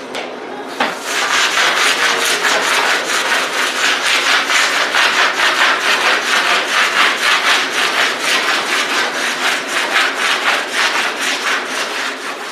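A plastic hand squeegee rubbed hard over vinyl lettering on a work table, burnishing it in quick, even strokes at about three or four a second.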